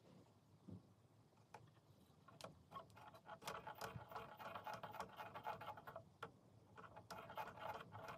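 Sewing machine stitching a seam in fast, even ticking runs: a few light clicks first, the machine starting about three and a half seconds in, stopping briefly around six seconds, then stitching again.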